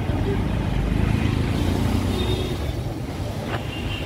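Street motor traffic passing at close range: an auto-rickshaw and motor scooters running by with a steady low engine rumble.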